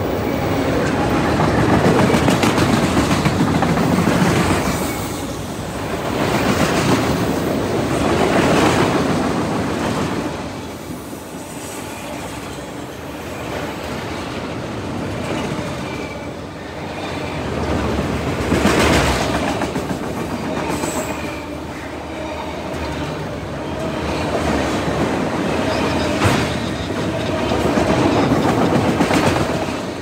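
Freight train of autorack cars rolling past close by: a steady rumble of steel wheels on rail with clickety-clack over the rail joints, swelling and easing every few seconds as the cars go by, and a faint wheel squeal in the second half.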